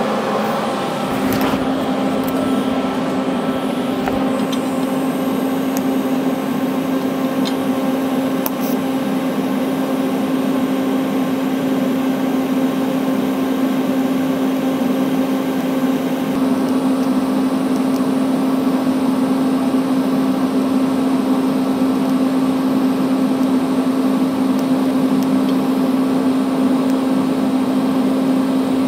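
TIG welding arc striking about a second in, then buzzing steadily as a stainless steel cone is welded to a mild steel flange with a dissimilar filler rod.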